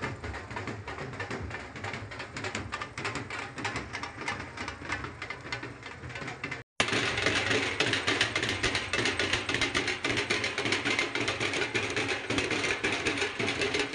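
Diesel tractor engine running close by, a rapid mechanical clatter with faint music behind it. The sound cuts out for an instant about halfway through and comes back louder.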